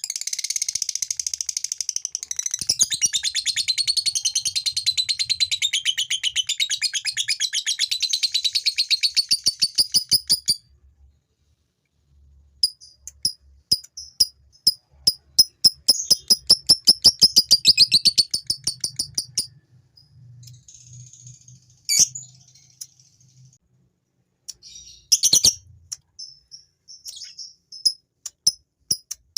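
Male lovebird's 'ngekek' song: a long, very fast unbroken chatter of high notes for about ten seconds. After a short pause comes a second fast run of about seven seconds, then scattered shorter calls and two sharp clicks.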